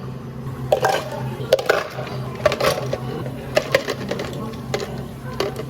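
Cafe counter work: a string of sharp clicks and clatters, like cups and utensils being handled, over a steady low machine hum.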